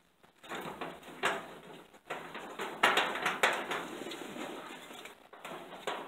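Rustling and scraping of a canvas work jacket brushing right against the microphone, with a few sharp knocks.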